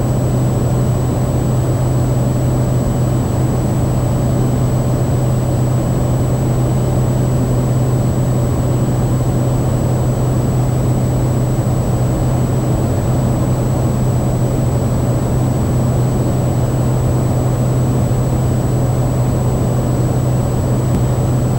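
Cessna 208 Caravan's PT6A turboprop engine and propeller droning steadily inside the cockpit in level flight: a constant low hum over a steady rushing noise, with a thin high whine.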